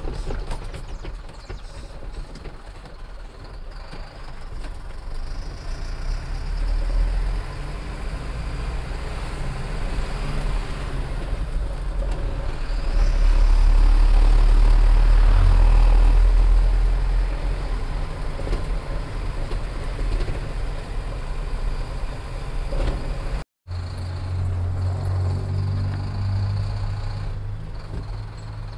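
Truck under way: a steady low engine rumble with road noise, swelling louder for a few seconds midway. It cuts out briefly about 23 seconds in, and then a steadier low engine hum goes on.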